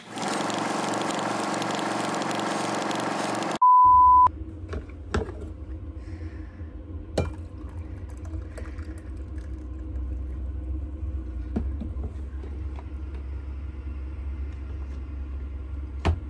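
A steady hiss of noise that cuts off suddenly, followed at once by a single short electronic beep. After it, a low steady hum with a few light clicks.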